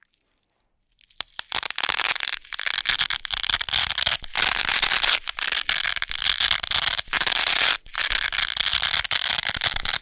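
Tan hook-and-loop (Velcro) tape, a hook roll and a loop roll worked against each other, the hooks catching and ripping free of the loops in a crisp, continuous crackle. It starts about a second in and breaks off briefly a few times.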